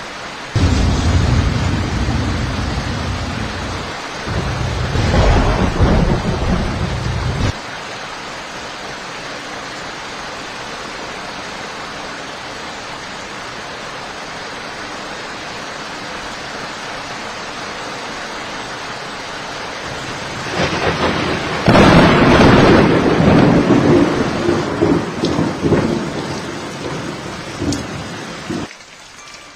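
Steady heavy rain with thunder: a long low rumble through the first seven seconds that cuts off suddenly, then a loud crack and rolling rumble about twenty-two seconds in.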